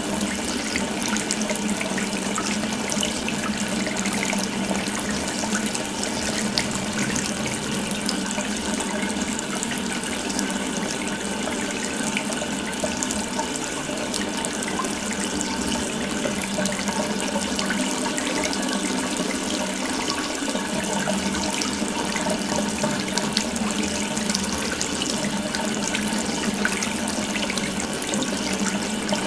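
Tap water running steadily from an open faucet, a continuous splashing stream.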